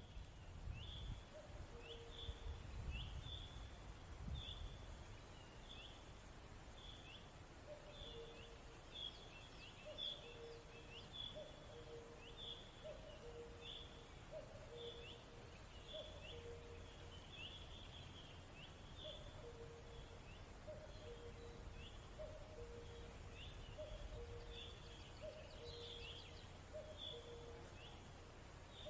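Faint outdoor animal calls: short, high, falling chirps repeated about once a second, over a lower call of two short notes that repeats every second or so, with a low rumble underneath.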